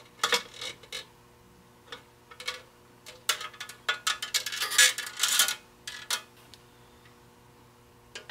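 Light clicks, taps and rattles of small parts being handled as a temperature gauge's probe and capillary tube are fed through a dash panel, in scattered bursts that are busiest from about three to six seconds in, then fall quiet.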